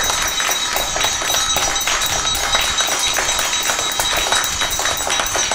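Many children clapping together, dense and uneven, with a steel plate being struck and a hand bell ringing, which adds steady high metallic ringing over the claps.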